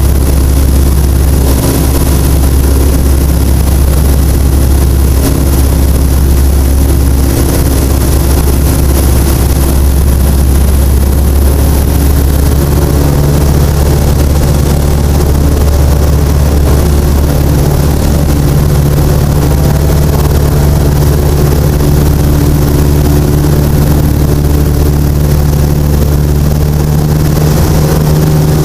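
Citabria light plane's piston engine and propeller droning steadily in flight, heard from inside the cockpit. The drone holds an even, deep pitch with a slightly stronger note in it from about halfway.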